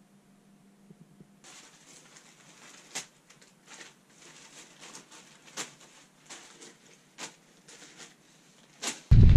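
Plastic food packets rustling and crinkling, with scattered sharp crackles, as they are handled and sorted; before that, only a faint room hum. Near the end, loud wind noise on the microphone cuts in suddenly.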